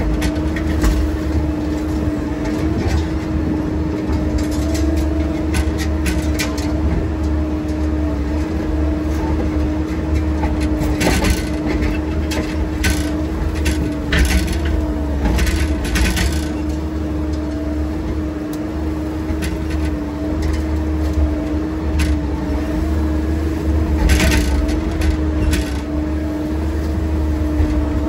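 Heavy excavating equipment's engine running steadily with a constant hum, with scattered sharp clacks and cracks in a cluster around the middle and again near the end.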